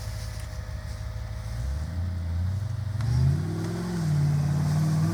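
Off-road 4x4's engine revving hard, climbing in pitch about two seconds in and again a second later, then held high near the end.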